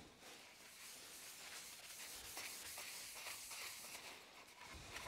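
Faint, continuous rubbing of a gloved hand spreading oil finish over a spalted beech board, a soft hiss with a few light scuffs.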